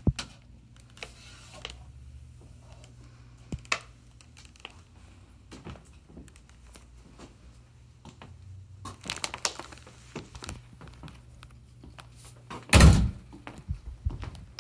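Handling noise from a hand-held phone carried through a small room: scattered clicks, knocks and rustles, and one loud thump near the end. A steady low hum runs underneath.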